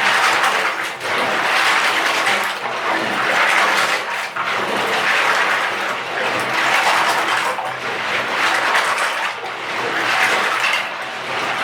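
Water from a running tap rushing over plastic Lego pieces as they are spun around by hand in the wash, the rushing swelling and easing every couple of seconds.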